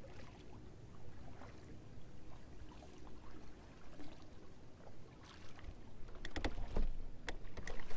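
Faint water sounds around a sit-on-top fishing kayak, with a few sharp clicks and knocks near the end.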